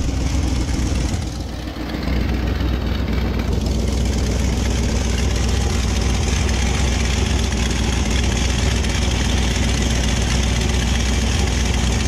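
Pickup plow truck's engine idling steadily, heard from the open engine bay.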